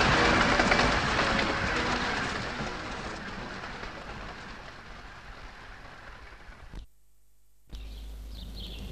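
A 15-inch gauge miniature steam train running at speed, a rushing noise that fades away over several seconds as it recedes. Near the end the sound cuts out abruptly for under a second, then a low hum comes in.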